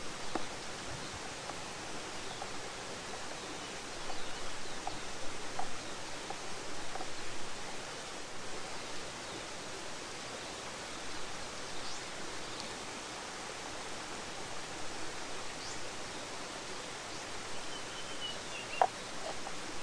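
Steady rush of flowing water from a stream and waterfalls, with a few light clicks and a short high bird call near the end, followed by one sharp click.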